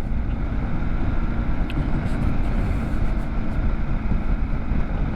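Motorcycle running at a steady speed, its engine hum mixed with wind rushing over the microphone.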